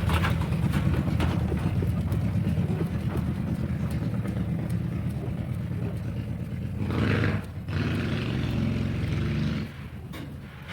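A motor running hard with a dense, rapid rattle. It cuts out briefly about seven and a half seconds in, starts again, then drops off near the end.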